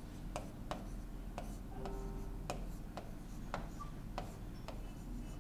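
Pen tip tapping and ticking against the glass of an interactive display as words are handwritten on it: irregular sharp ticks, about two or three a second, over a faint steady low hum.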